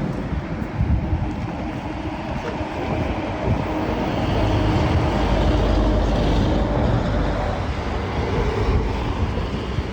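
Road traffic noise: a steady vehicle rumble that swells in the middle as a vehicle goes by.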